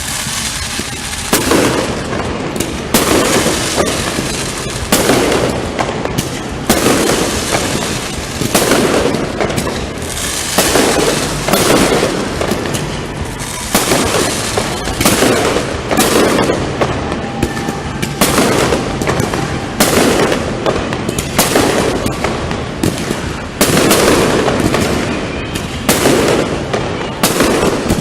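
Fireworks display: a continuous barrage of shell bursts and bangs, about one or two a second, each with a short rumbling echo.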